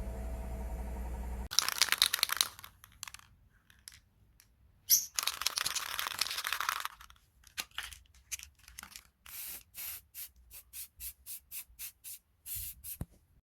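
Crafting noises from working a plastic bottle by hand: two stretches of rubbing and scraping, then a run of short quick strokes, about two a second. A steady low hum cuts off about a second and a half in.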